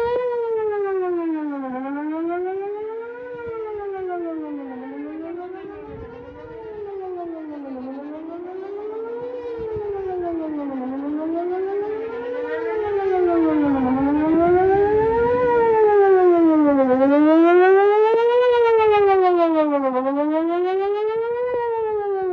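Whelen WPS 4004 electronic outdoor warning siren sounding a tornado-siren test in a wail, its pitch sweeping up and down about once every two seconds. A fainter wail, out of step with it, overlaps the main one. The overall level dips in the middle and swells again near the end.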